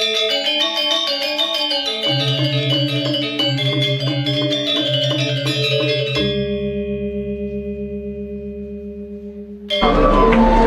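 Instrumental background music: a fast run of bright, piano-like notes over sustained low tones, left ringing and fading from about six seconds in, then a sudden louder, denser passage near the end.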